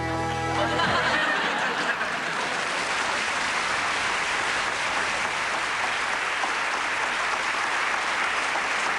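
Studio audience applauding and cheering steadily after a song-and-dance number, the tail of the music ending about a second in.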